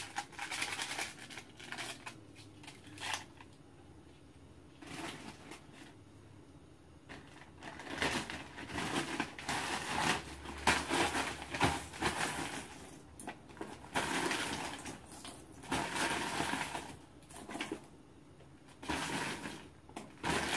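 Plastic bag crinkling and rustling in irregular bursts as frozen dumplings are taken out of it and put into a pan of ramen, with a few short rustles from a seasoning packet being torn open near the start.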